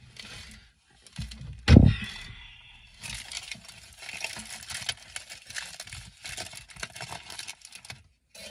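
A loud thump about two seconds in, then steady, irregular rustling and crinkling of takeout packaging as a burrito is unwrapped.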